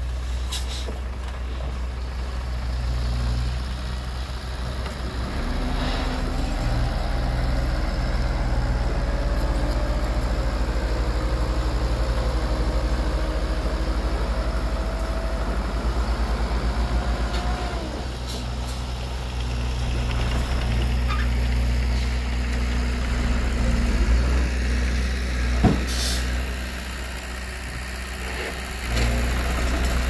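Heavy diesel machinery, dump truck and excavator engines, running with a steady low rumble. A faint whine slowly rises in pitch through the middle, and near the end comes a sharp knock followed by a short hiss of air.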